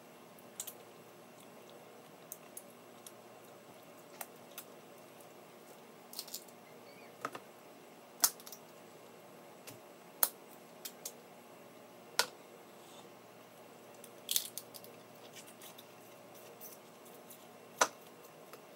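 Snow crab leg shells being cracked and snapped apart by hand: irregular sharp cracks and clicks, with four louder snaps spread through and softer clicks between.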